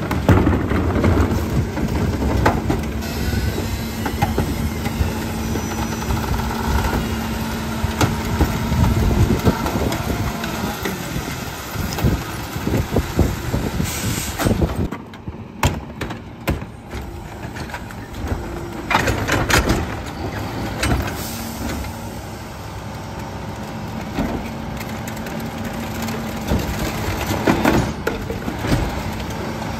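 McNeilus rear-loader garbage truck at work: the engine and hydraulics run with a steady low hum, under repeated bangs and clatter of recycling and plastic carts being dumped into the hopper and packed.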